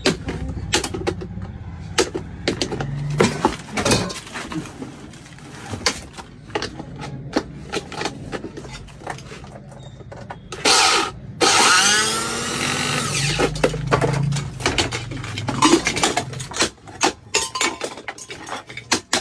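Metal tools and appliance parts clattering and knocking on a workbench. A little past halfway, a small electric mixer grinder motor runs in two short bursts, its whine sliding in pitch as it spins.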